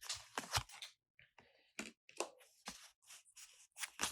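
Quiet, irregular rustles and light taps from a Pokémon trading-card booster pack and its cards being handled.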